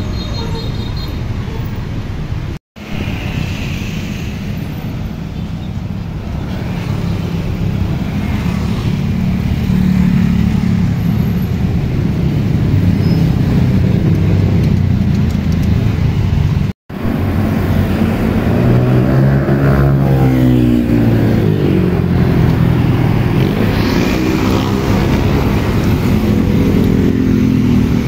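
Road traffic: cars, motorbikes and buses passing with engines running. About two-thirds of the way through, a heavy vehicle's drone rises and falls in pitch as it goes by.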